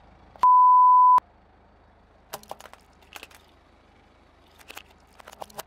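A steady one-tone beep lasting under a second, the loudest sound here, followed by several short clusters of sharp cracks and crunches as a car tyre rolls over small objects on asphalt.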